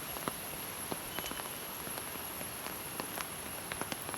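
Rain falling on a rainforest, with scattered drops ticking irregularly over a steady hiss and a constant high-pitched whine.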